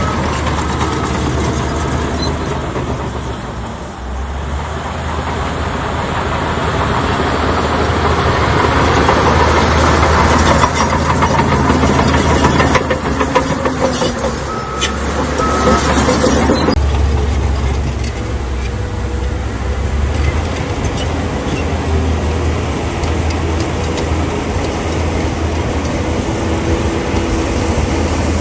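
Bulldozer's diesel engine running under work, with a steady low engine note and mechanical clatter. The sound changes abruptly about two-thirds of the way in, as at a cut to another shot.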